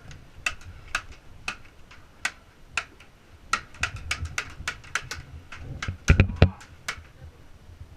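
Irregular sharp clicks and knocks, several a second, with a louder cluster of knocks about six seconds in.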